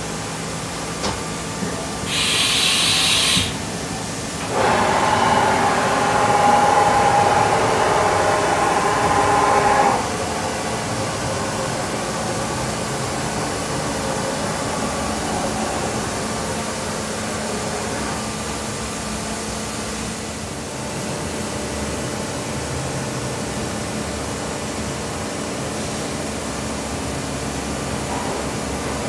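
Haas VF-7/40 vertical machining center running with a steady hum. About two seconds in there is a short hiss. Then, for about five seconds, a louder whir with several steady tones as the table travels over its telescoping steel way covers, before it drops back to the steady hum.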